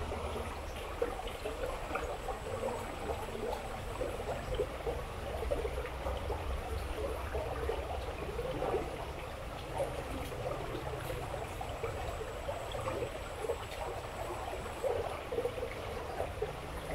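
Water flowing and gurgling steadily along a small drainage ditch that is running high after heavy rain.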